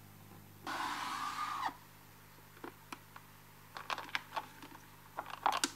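Handling of an old reel-to-reel tape recorder's case: a scrape lasting about a second as the lid is lifted off, then a run of light clicks and rattles as the power cord is pulled out of its compartment in the back of the case.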